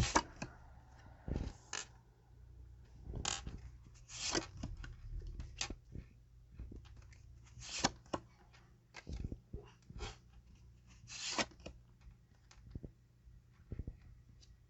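Tarot cards being handled and laid out by hand: a string of short swishes and clicks as cards slide, flip and tap on one another and the table, irregularly spaced.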